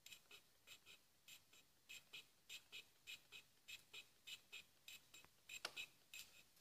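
Lathe-mounted cutter scraping tooth slots into a plastic wheel in repeated short cutting strokes: a quick run of faint, scratchy scrapes, about three or four a second.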